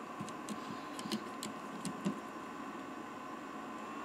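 Light clicks and taps of a 3D-printed plastic fan duct being handled and fitted onto a 3D printer's hotend, a few small ones in the first two seconds, over a steady faint hum.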